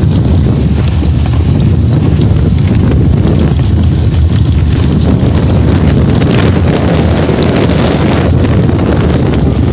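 Opel Kadett 1.3 four-cylinder petrol engine running, picked up close with heavy air noise on the microphone. The engine has a knock (стук) that the owner is recording to track down.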